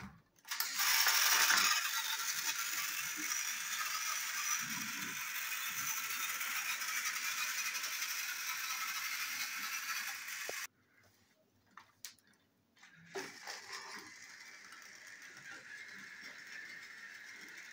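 Battery-powered motorized toy train engines running along plastic track, their small motors and gears giving a steady high whir. The whir cuts off abruptly about ten seconds in, and a quieter one starts again a couple of seconds later.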